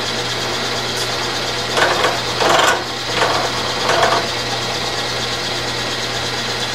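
Milling machine running with a gear cutter spinning through a metal shaft under coolant: a steady motor hum with louder cutting noise about two seconds in and again about four seconds in. The cut is not going right, which the machinist puts down to a tailstock left untightened so the work is pushed back.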